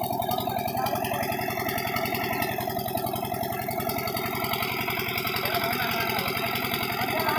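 Diesel engine of a water pump set running steadily at a constant speed, with an even, rapid chugging beat.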